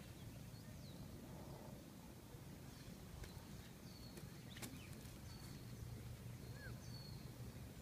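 Faint outdoor ambience: a low steady rumble with scattered short, high bird chirps. A couple of sharp faint clicks come in around the middle.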